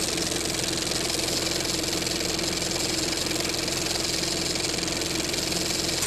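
A steady mechanical running noise with a constant hum and tone, starting abruptly and holding an even level.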